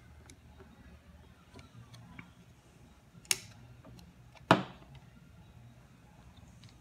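Small plastic and metal parts clicking as copper contacts are fitted into the white plastic housing of a Kärcher K2 pressure washer's trigger switch: two sharp clicks a little over a second apart, with faint ticks between.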